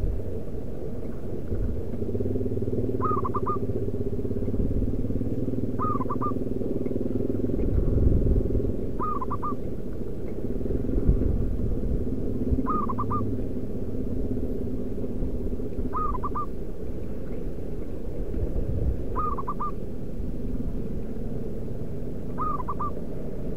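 Zebra dove calling: a short burst of quick cooing notes about every three seconds, over a loud steady low rumble.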